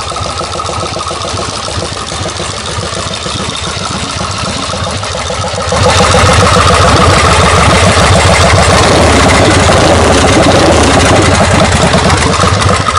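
Custom chopper motorcycle engine running with a steady pulsing beat, becoming abruptly much louder about six seconds in and staying loud.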